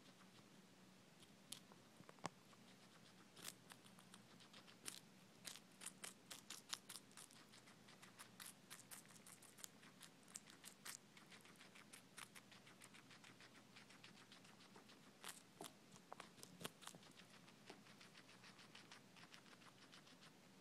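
Guinea pig crunching and chewing a crisp green vegetable close to the microphone: rapid runs of sharp, crunchy clicks with short pauses between bouts.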